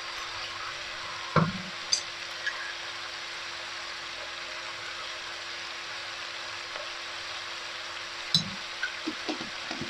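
Chopped vegetables sizzling steadily in butter and oil in a steel pot. There is a single knock about a second and a half in, and a few light clicks of a metal spoon against the pot near the end as salt is sprinkled in.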